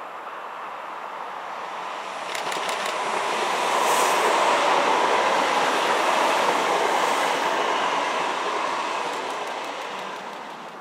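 A high-speed electric passenger train passing at speed: a rushing noise that swells to its loudest about four to seven seconds in and then fades, with short runs of quick clicks from the wheels near the start and near the end.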